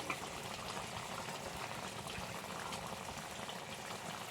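Ngahei thongba (small-fish curry) bubbling steadily at a boil in a cooking pot.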